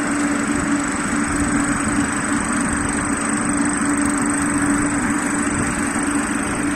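Automatic ginger dryer machine running, its electric motor driving the mesh conveyor belt: a steady mechanical hum with one constant low tone.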